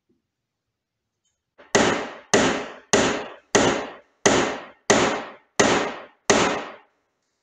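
Eight evenly spaced strokes of a hand tool worked in the woodworker's hand, about one and a half a second, each starting sharply and fading out over about half a second; they begin a little under two seconds in.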